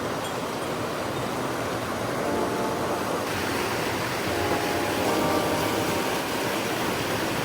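Rushing mountain stream water, a steady dense hiss. Faint background music comes in about two seconds in and drifts in and out over it.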